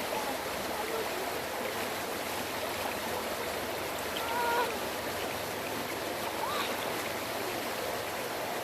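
Mountain brook water rushing steadily over rocks.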